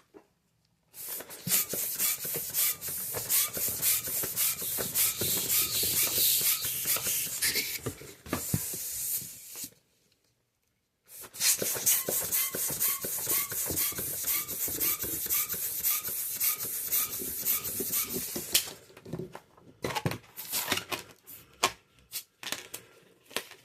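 Latex modelling balloons rubbing and squeaking under the hands as they are handled and twisted. It comes in two long stretches with a short silent pause between them, then lighter scattered crinkles and squeaks near the end.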